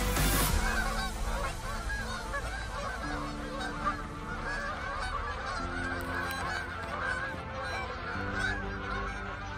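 A large flock of Canada geese honking in flight overhead: many calls overlapping into a continuous clamour.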